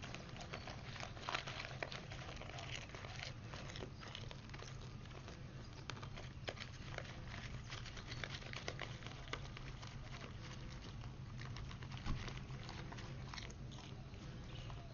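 A deer crunching and chewing popcorn out of a paper popcorn box held in a hand: many small crackles and snaps with the paper crinkling, over a steady low rumble.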